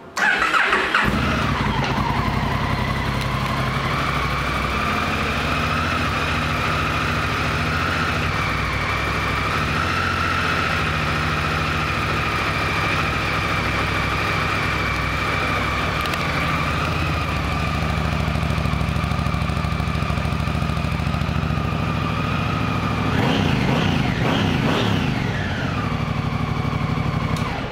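Honda CRF1000L Africa Twin's 998 cc parallel-twin engine starting on the starter, then idling steadily. About 23 seconds in it is revved briefly a few times, and it shuts off near the end.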